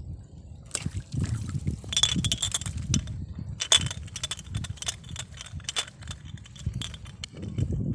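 Irregular sharp clicks and rustling, densest in the first half, over a low rumble.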